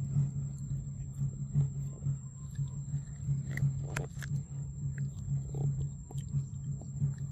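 Macaque biting and chewing kernels off a corn cob: scattered short crunches and clicks, with a cluster about four seconds in. Under it runs a steady low hum and a thin, steady high-pitched tone.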